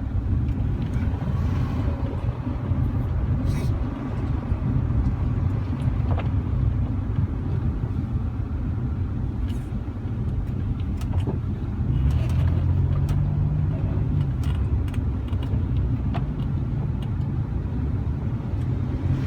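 Car engine and tyre noise heard from inside the cabin while driving, a steady low rumble. The engine note strengthens for a couple of seconds about twelve seconds in. Scattered light ticks run over it.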